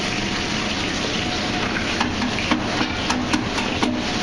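Steady rushing noise of a commercial kitchen, from the ventilation hood and gas burners. Five or six short sharp knocks and clinks, like metal pans or utensils being handled, come in the second half.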